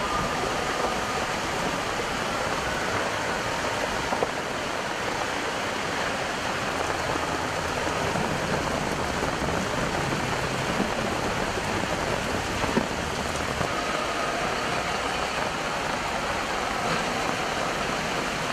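Heavy rain pouring down on a flooded street as a steady hiss, with traffic driving through the standing water.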